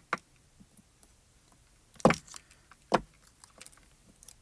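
Handling noise from gluing die-cut cardstock pieces on a craft desk: a light click, then two louder knocks about a second apart, with faint small ticks between.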